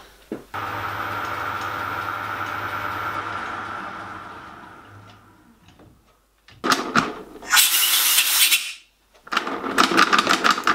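A metal-working lathe's motor starts with a steady hum, runs for about three seconds and winds down. Then come two loud spells of clattering and rattling.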